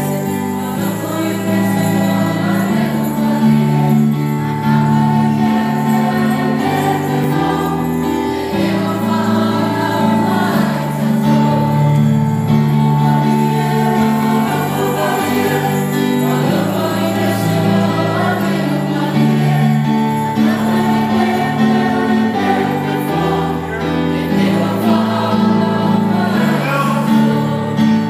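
Christmas song with jingle bells over held chords, and a choir singing.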